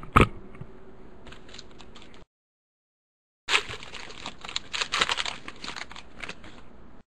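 Trading cards and a foil card pack handled on a desk: crinkling wrapper and cards clicking and rustling, with a sharp knock about a quarter-second in. The sound drops out for about a second midway, then the handling noise returns denser.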